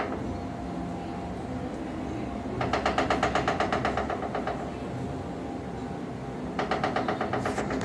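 Fitkit FT200S treadmill running with a steady low hum, broken twice by spells of rapid knocking, about five or six knocks a second, lasting a second or two each. This is the fault noise the treadmill is complained of for, a knocking from the motor.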